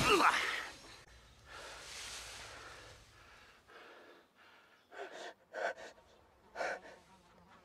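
A person's heavy breathing: one long breath out, then three short gasps near the end.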